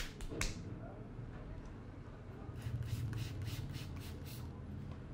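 Sharp hand strikes from a barber's head massage: two at the very start, then a quick run of about eight, roughly four or five a second, over a steady low hum.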